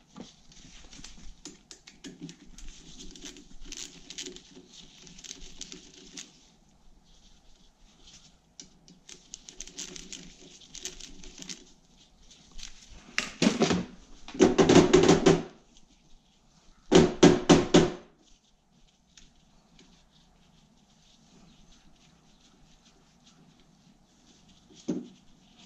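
Tools clinking and rattling in a plastic tool organizer. About halfway through come louder metallic clattering and a quick run of sharp knocks as the go-kart's rear wheel hub is worked on with a T-handle hex key, then it goes mostly quiet.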